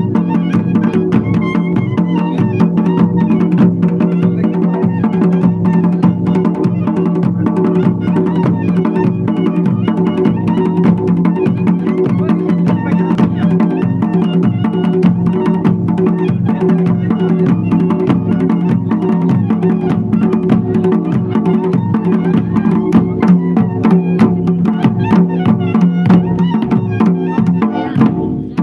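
Traditional Himachali drum ensemble: a large barrel dhol struck with a stick, joined by several other drums, beating a fast, even rhythm over a steady held tone. There is a brief break just before the end.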